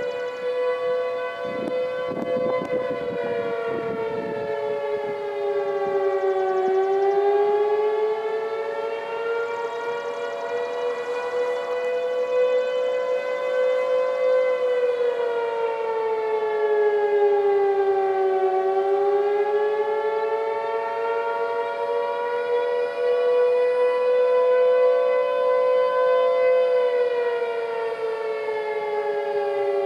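Outdoor tornado warning sirens, Federal Signal 3T22 and STH-10B among them, sounding together in a test. One siren tone slowly sinks and climbs in pitch about every twelve seconds, while other tones hold steady beneath and above it.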